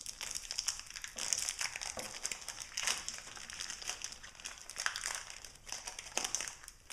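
Foil wrapper of a Pokémon TCG booster pack crinkling continuously as it is handled and opened, an irregular run of dense crackles.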